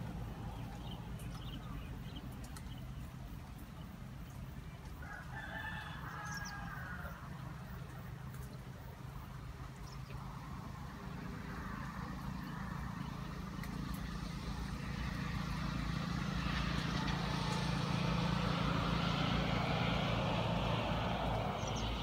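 Outdoor ambience: a steady low hum throughout, one bird call about six seconds in, and a broad rushing noise that swells through the second half.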